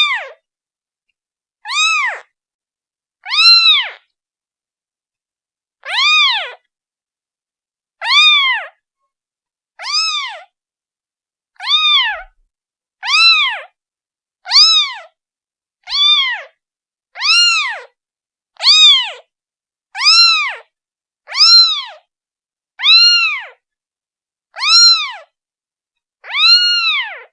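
A day-old kitten meowing repeatedly to call its mother: short, high calls that rise and then fall in pitch, with silence between them. The calls come about every two seconds at first and grow quicker, about every second and a half, through the second half.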